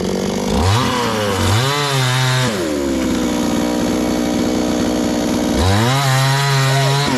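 Chainsaw engine idling and twice revved up hard, each time held high for about two seconds before dropping back to idle.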